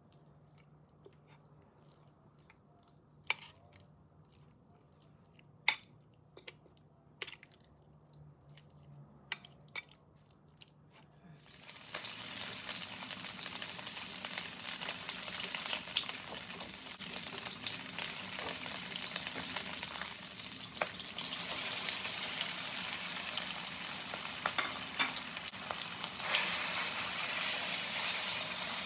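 Chopsticks clicking against a plate a few times while mixing marinated pork. About twelve seconds in, oil starts sizzling in a wok as onion chunks are sautéed and stirred with a slotted spatula. The sizzle gets louder near the end, as sliced pork goes into the wok.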